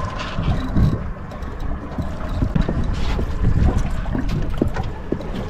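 Wind buffeting the microphone aboard a small fishing boat on open water, a heavy uneven low rumble, with scattered small knocks and splashes.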